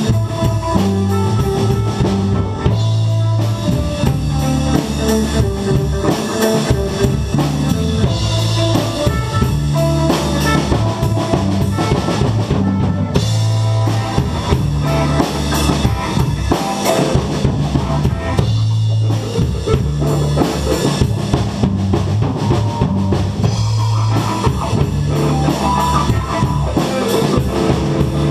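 Live instrumental band passage: electric guitar, electric bass and drum kit playing together, with a steady bass line under the drums and no vocals.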